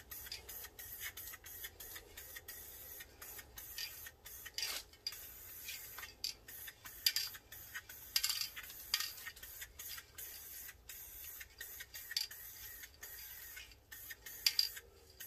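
Aerosol spray can of Dupli-Color graphite paint, worked with a clip-on trigger handle, hissing in short on-off bursts as a light first coat goes onto a wheel.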